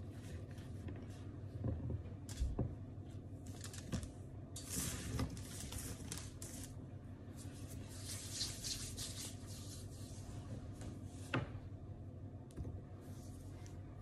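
Mouth sounds of someone chewing crumbly, microwaved white powdery chunks, with scattered crisp crunches and clicks. Hands rub together to brush off the powder, briefly about five seconds in and again about eight seconds in.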